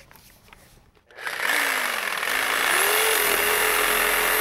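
Reciprocating saw starting about a second in and cutting through the nails between a wooden door jamb and post. Its motor whine rises to full speed partway through, eases briefly near the end and picks up again.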